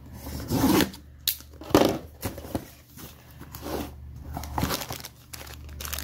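Cardboard box being opened by hand, then clear plastic zip bags of parts handled inside it: irregular scrapes, taps and crinkling, loudest about two seconds in.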